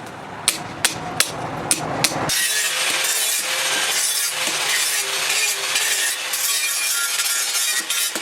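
Five sharp hammer blows on metal, about two a second. After an abrupt cut, a steady abrasive rasping of metal being worked takes over.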